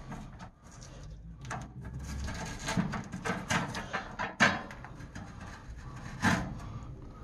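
Handling noises: soft rubbing and scattered light knocks, with two louder knocks about four and a half and six seconds in.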